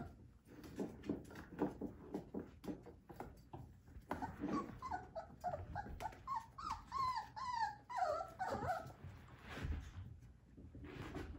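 Three-week-old whippet puppy whining in a string of short, high squeaky cries lasting several seconds, starting about four seconds in. Before it come light taps and scuffles of small paws.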